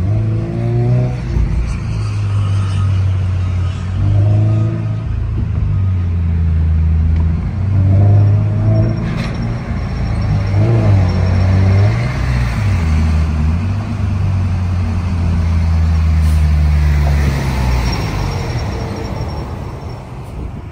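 Toyota GR86's 2.4-litre flat-four engine running under way, with road noise; the engine note changes pitch several times as the car speeds up and eases off in traffic.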